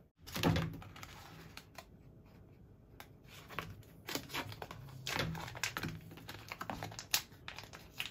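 Plastic packet of ramen toppings crinkling and crackling as hands handle and open it: a run of sharp, irregular clicks, loudest about half a second in.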